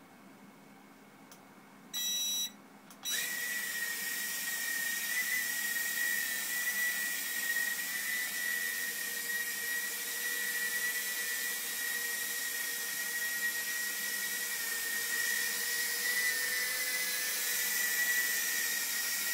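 A short beep about two seconds in. About a second later the Furibee H801 mini quadcopter's motors and propellers spin up and run with a steady high-pitched whine as it takes off on automatic start and hovers.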